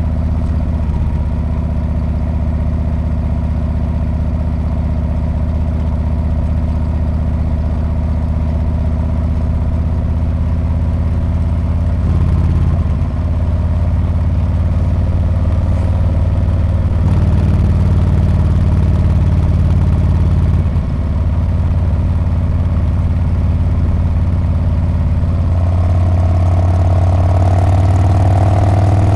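Harley-Davidson Street Bob's V-twin engine running through its exhaust while riding, a steady deep note. The note shifts up and down with the throttle, dips briefly about twenty seconds in, and rises toward the end.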